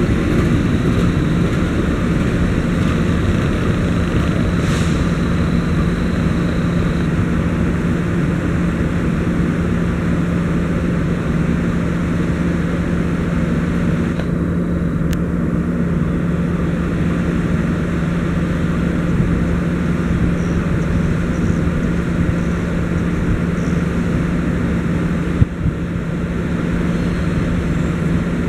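Diesel train engine running with a steady low drone and hum as a passenger train pulls slowly away along the station tracks. A single sharp knock sounds near the end.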